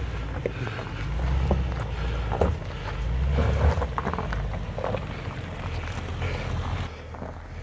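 Range Rover Sport crawling over a rocky trail: its tyres crunch and crackle over loose stones and gravel above a low rumble of the engine. The sound eases off about seven seconds in.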